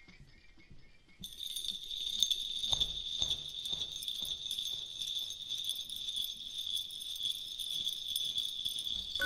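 Background music: jingling bells come in about a second in and keep up a steady shimmer over a soft, regular pulse.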